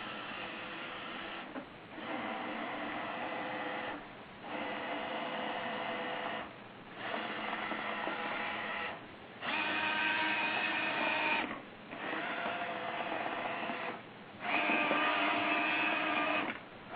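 Roomba robot vacuum's motors whining as it moves under an autonomous program: runs of about two seconds, stopping briefly about every two and a half seconds, with the pitch changing from one run to the next.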